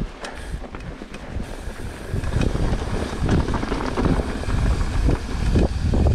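Wind buffeting the microphone while a mountain bike is ridden down a trail, with the bike's rattle and clatter over rough ground. Louder from about two seconds in.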